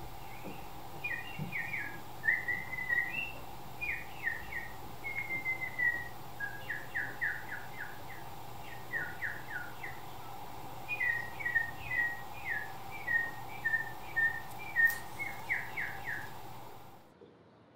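Birdlike chirping whistles in short phrases of quick falling notes, repeated again and again over a steady low hum, stopping abruptly near the end.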